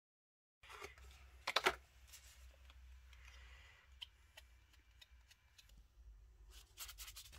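Faint handling noise of a tube of cream, medicine boxes and a blue disposable glove being picked up and handled: scattered sharp clicks and rustles, the loudest clatter about one and a half seconds in and another quick run of clicks near the end.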